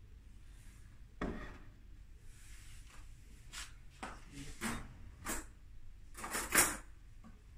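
Dishes and utensils being handled on a wooden chopping board: a series of short knocks and scrapes, the loudest near the end.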